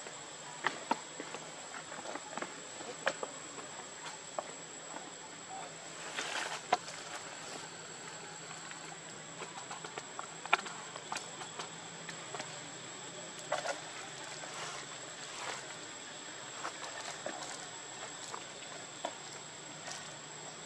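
A steady, thin, high-pitched insect whine, with scattered soft clicks and brief rustles.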